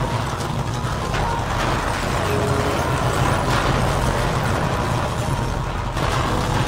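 Earthquake shaking a room: a steady low rumble with continuous rattling and clicking of fittings and furniture.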